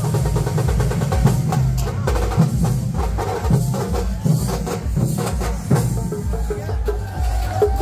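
A Kerala thambolam percussion troupe playing loudly: deep drums beat a steady, driving rhythm, with a pitched melodic line running over the drumming.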